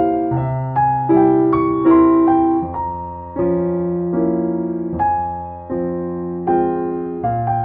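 Slow, gentle piano music: sustained chords and melody notes, a new note or chord struck every half second to a second.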